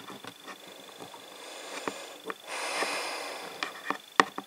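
Light taps of a plastic Littlest Pet Shop toy figure being hopped across a tabletop by hand, coming thicker near the end, with a breathy sniff in the middle.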